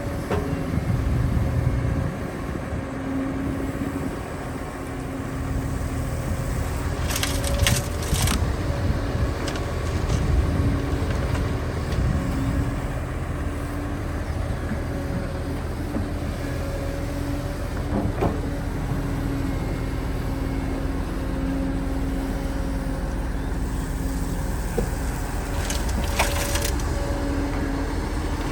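Excavator's diesel engine running steadily with a constant whine over it, broken by sharp cracking sounds about seven to eight seconds in and again near the end.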